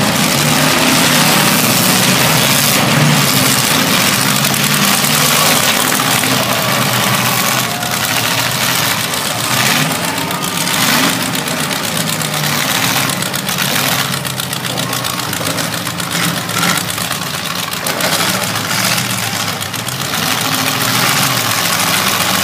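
Several demolition-derby car engines idling and revving together, their pitch rising and falling as the cars manoeuvre.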